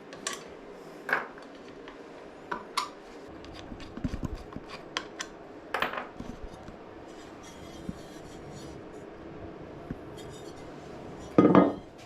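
Hand tools clinking and scraping against the metal of a vintage Ariel motorcycle engine as it is worked on, in scattered light clicks, with one louder clank near the end.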